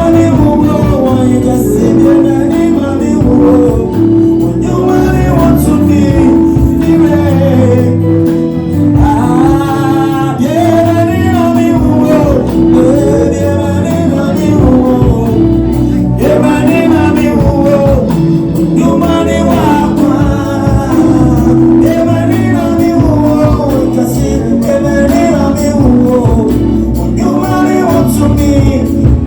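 Gospel music: singing over a steady, loud band accompaniment.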